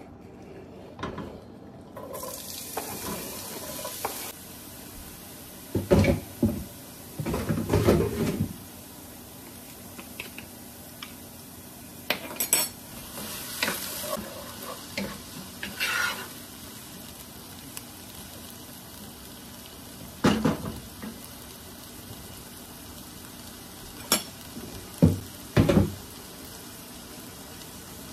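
Diced tomato, green pepper and onion frying in hot oil in a pot: a steady sizzle starts about two seconds in, broken by bouts of a spoon stirring, scraping and knocking against the pot.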